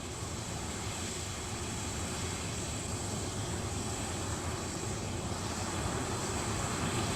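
Concorde's jet noise in the climb just after take-off: a steady rushing noise, heaviest in the low end, that slowly grows louder.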